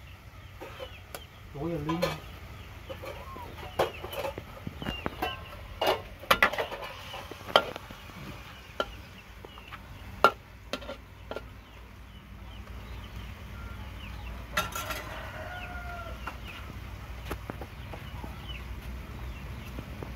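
Metal spatula clanking and scraping against a wok in irregular strokes while stir-frying, most of them in the first half. Poultry call now and then, once about two seconds in and again past the middle.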